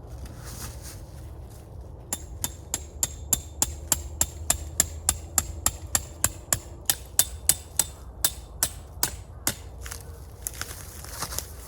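A hammer striking a stake about three times a second for several seconds, each blow sharp with a metallic ring, then a few scattered blows near the end: a tarp peg being driven into the ground.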